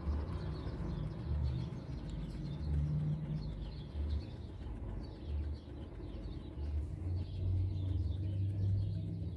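Birds calling in the background: many short, high, falling chirps, over low cooing that repeats about every second and a half and draws out longer near the end.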